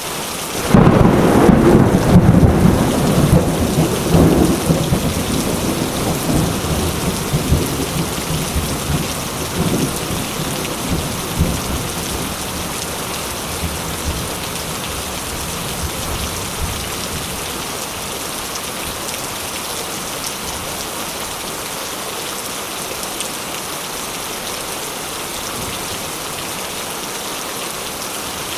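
Steady heavy rain with a clap of thunder just under a second in, its deep rumble rolling on and slowly dying away over the next fifteen seconds or so.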